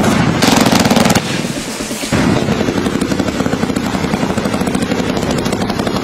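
Fireworks going off: a dense burst of rapid crackling about half a second in, then a continuous fast crackle and popping from about two seconds in.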